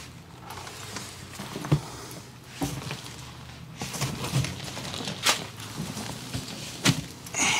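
Knocks and thumps of luggage being handled: an old suitcase lid shut and the case shifted, then cardboard boxes moved. There are four separate sharp knocks over a faint low hum.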